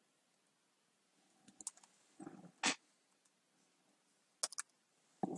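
Computer keyboard keys pressed one at a time, a handful of separate clicks with pauses between them, starting about a second and a half in, as a shell command is edited.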